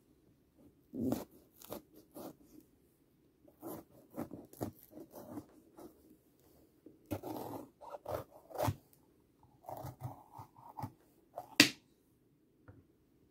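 Kitchen knife cutting around the stem of a red bell pepper: irregular short crisp cuts and squeaks through the pepper's flesh. Near the end there is a single sharp clack, the loudest sound, as the knife is set down on the wooden cutting board.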